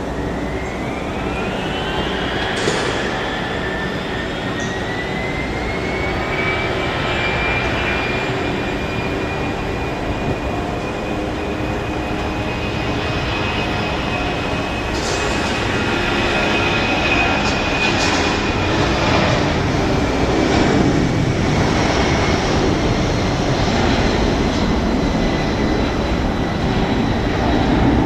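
Boeing 757-200 freighter's twin turbofan engines spooling up for takeoff: a whine rises in pitch over the first several seconds, then holds steady over a rumble that grows louder toward the end.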